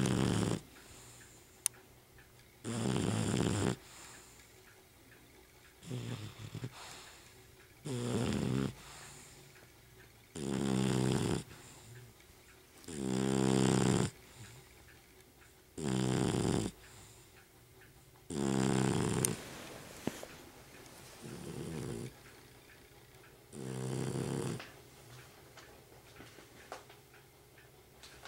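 A sleeping dog snoring loudly: about nine snores, each lasting about a second, coming roughly every two and a half seconds. The snores stop near the end.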